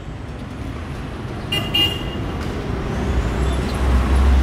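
Street traffic going past: a car horn gives two short toots about one and a half seconds in. Near the end the low engine rumble of a bus grows loud as it passes close by.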